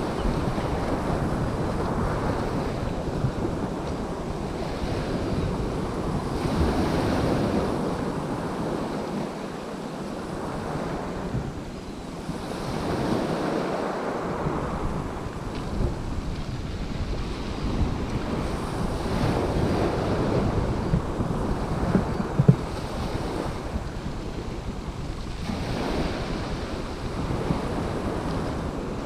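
Small waves breaking and washing up a shingle beach, the surf swelling and easing about every six seconds, with wind buffeting the microphone. A single brief knock about two-thirds of the way through.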